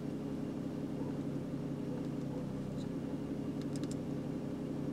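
Car engine idling steadily, heard from inside the cabin, with a few faint clicks a little under four seconds in.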